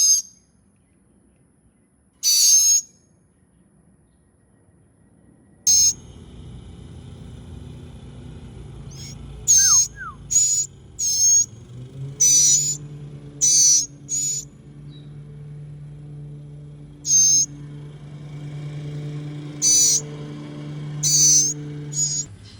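Rescued nestling birds giving short, shrill, high-pitched calls, a dozen or so at uneven intervals. From about six seconds in a steady low hum runs underneath.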